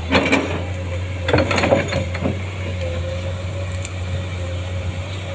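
Komatsu hydraulic excavator running steadily with a low engine drone and a steady whine, with a few clanks and knocks in the first two seconds or so as the bucket works the soil and rock of a landslide.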